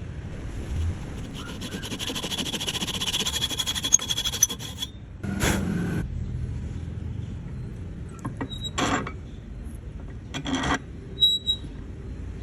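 A tool rasping against wood in quick, rapid strokes for a few seconds, followed by a few short bursts of scraping or rubbing.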